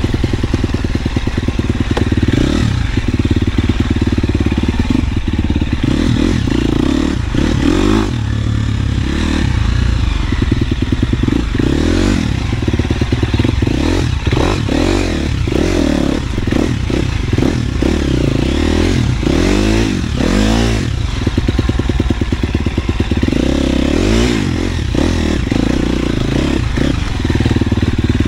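KTM 250 SXF four-stroke single-cylinder dirt bike engine running under load while the bike is ridden off-road. Its pitch rises and falls again and again as the throttle is opened and closed.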